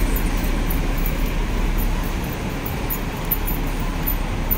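Steady street traffic noise with a low rumble, from road traffic and a double-decker bus at a city bus stop.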